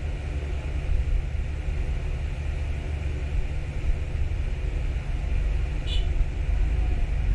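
Steady low rumble under a faint hiss, with one short high chirp about six seconds in.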